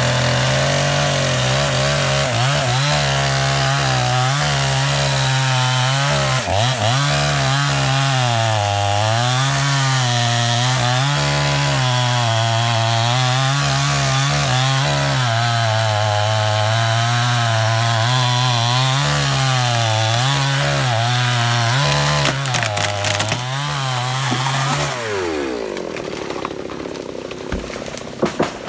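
Two-stroke chainsaw cutting through a tree under load, its engine pitch rising and falling as the bar bites. About 25 seconds in, the throttle is released and the engine drops off. A few sharp cracks come in the last few seconds.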